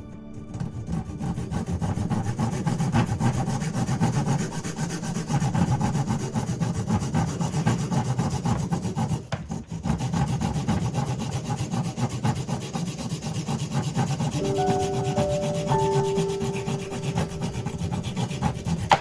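Wood being sawn: a continuous rough, rasping cut through wood, with a brief break about halfway through. Soft musical notes come in under it near the end.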